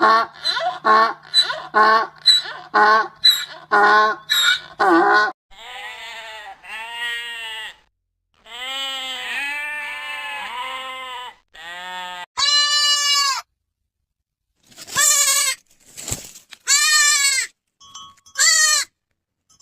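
A run of young animal calls, one kind after another: rapid repeated short calls for about the first five seconds, then a series of bleats that rise and fall in pitch, like a baby goat or lamb, then a few higher, longer cries near the end.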